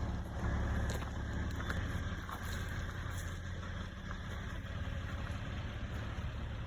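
A motor vehicle engine idling: a steady low rumble.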